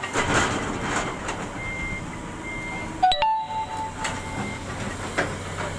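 Excavator running, with a steady low hum and scattered knocks, and a sharp metallic clank about three seconds in that rings briefly.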